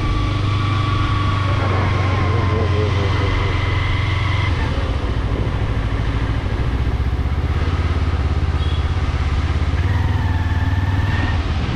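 Sport motorcycle engine running steadily as the bike cruises along a wet road, under a constant rush of noise. The engine note drops slightly about halfway through.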